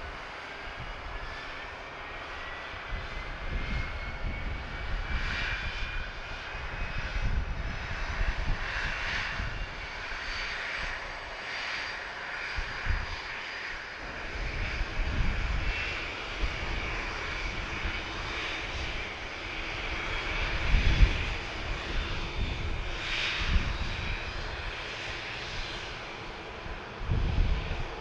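Boeing 737-800's CFM56 turbofan engines whining during pushback, a thin tone in the whine rising slowly in pitch over the first several seconds as an engine spools up. Wind rumbles on the microphone in gusts, loudest about two-thirds of the way in.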